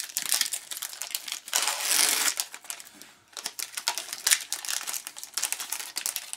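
Plastic card sleeves and a foil trading-card pack wrapper crinkling and rustling as hockey cards are handled, with a louder burst of crinkling about two seconds in.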